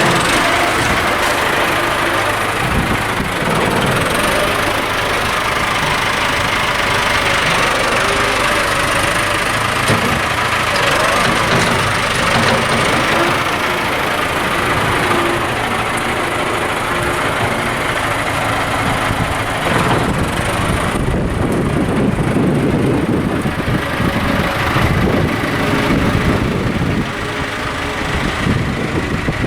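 Farm tractor's diesel engine running steadily while its front loader works, with the note shifting as the load changes.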